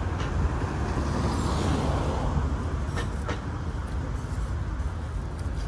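City road traffic: a steady low rumble of passing vehicles, with two short clicks about three seconds in.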